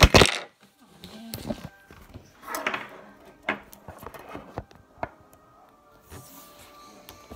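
Handling noise from the recording phone being picked up and moved: a loud thump at the start, then scattered knocks and short scuffing bumps.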